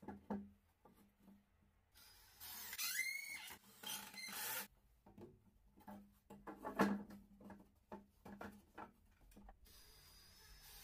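Wooden boards knocking and clattering as they are handled and set down on a wooden workbench, with a louder knock about seven seconds in. About two seconds in comes a couple of seconds of louder scraping noise with a rising squeal.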